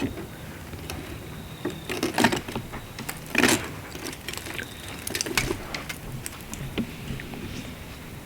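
Irregular knocks and clatter of work on the cabin's timbers, the two loudest about two and three and a half seconds in and a quick run of smaller clicks around the middle.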